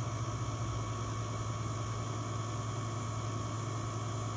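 Refco vacuum pump running steadily with a low, even hum and hiss while it pulls a deep vacuum on a newly installed air-conditioning system during its final evacuation.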